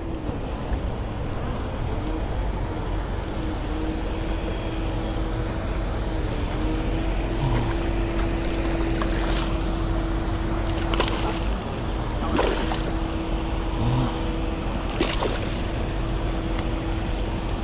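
Steady low rumble with a continuous hum through most of it, and a few short clicks.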